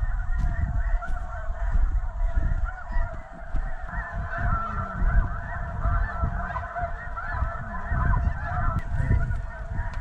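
A dense chorus of snow geese, many birds honking and yelping at once in overlapping calls, over a low rumble.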